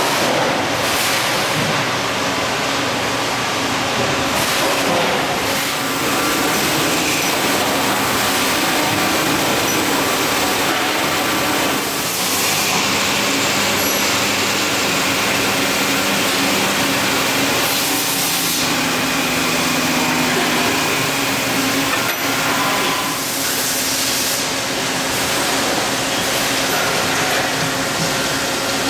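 Machine shop floor noise: CNC lathes and bar-fed machines running at once, a steady hiss with a few held machine tones, the mix changing every few seconds.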